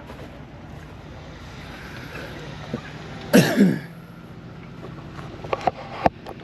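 A loud, short vocal sound about three seconds in, falling in pitch, like a cough close to the microphone, over a steady low hum; a few sharp clicks follow near the end.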